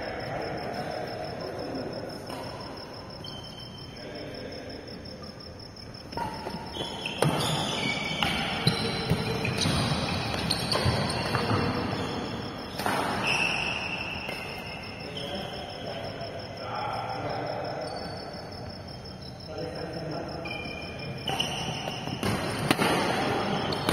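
Badminton rally: a shuttlecock is struck back and forth by rackets in sharp, irregular hits, along with players' footsteps on the court. Brief short calls are heard, and a faint steady high-pitched tone sits under it all.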